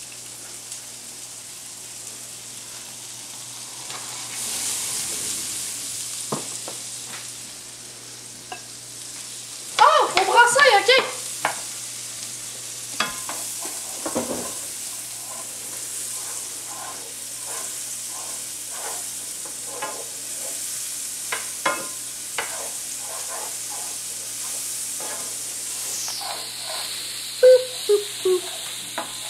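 Chopped onions sizzling in oil in a frying pan while a spatula scrapes and clicks against the pan as they are stirred. The sizzle grows louder about four seconds in and again near the end. A short burst of a person's voice comes about ten seconds in.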